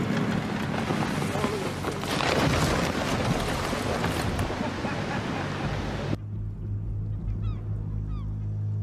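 Glacier ice front calving: a loud rushing rumble of ice collapsing into the sea, loudest a couple of seconds in. About six seconds in it cuts off suddenly to a small boat's motor humming steadily, with a few faint high chirps.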